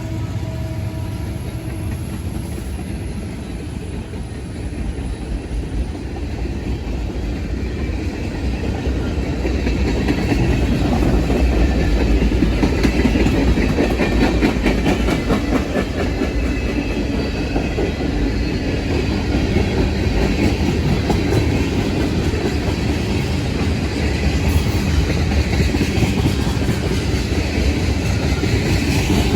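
Freight train rolling past, its cars' wheels clacking over the rail joints; it gets louder about ten seconds in and stays loud.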